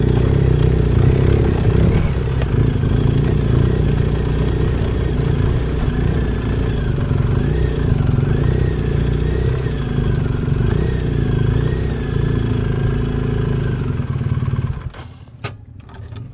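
BMW R 1250 GS Adventure's boxer-twin engine running steadily at low trail speed, heard from the rider's seat, with a faint wavering high whistle through the middle. The engine sound drops away abruptly near the end.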